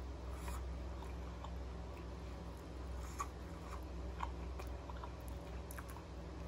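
Close-miked chewing of a soft air-fried mackerel croquette, with small wet mouth clicks and two sharper ticks about three and four seconds in.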